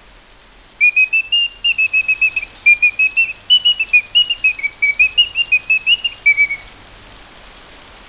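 Eschle mechanical singing-bird movement, its restored bellows blowing a piston whistle: a warbling bird song of quick whistled chirps that step up and down in pitch, starting about a second in and stopping near the end, over a steady hiss.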